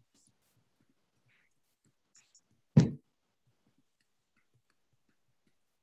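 Near silence on a video-call audio feed, broken by faint scattered clicks and one short loud thump about three seconds in.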